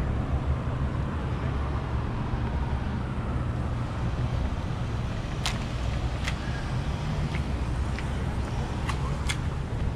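Steady low rumble of vehicle engines and street traffic, with a few sharp clicks in the second half.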